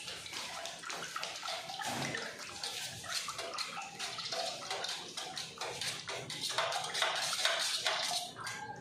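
Liquid sloshing and splashing in a container as Venetian red colorant is mixed into sanding sealer.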